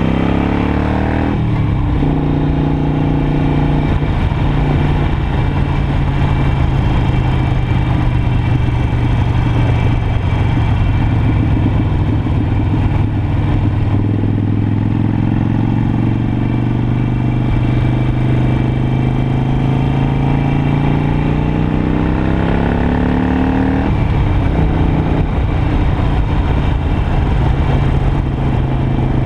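Harley-Davidson Iron 883's air-cooled V-twin running under way at road speed, heard from the rider's seat with wind on the microphone. The revs shift about a second and a half in, climb slowly through the middle, then drop suddenly late on, as at an upshift.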